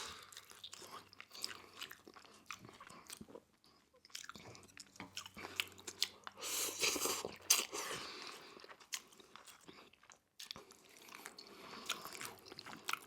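Close-miked chewing of crunchy food: a person biting and crunching, with crisp crackles scattered throughout and a denser crunching spell about six to seven and a half seconds in.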